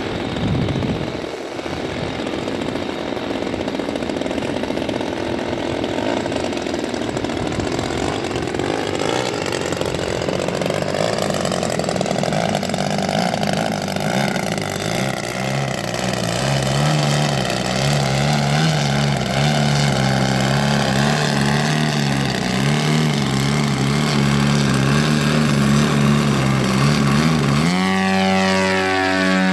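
ZDZ 180 twin-cylinder two-stroke gasoline engine of a 40% Extra 300 radio-control aerobatic plane, swinging a 32x12 propeller, running in flight with its pitch sweeping up and down as the plane manoeuvres. Near the end it settles into a louder, steady note as the plane hangs on its propeller close by.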